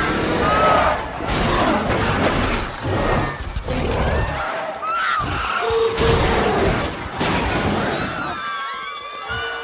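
Film sound mix of crashing and shattering with people screaming, and a short held tone about halfway through.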